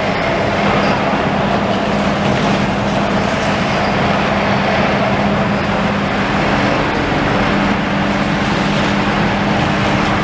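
A steady, loud din of heavy diesel demolition machinery, excavators and site plant, with a constant low hum. A second hum joins about two-thirds of the way through. Road traffic passes close by.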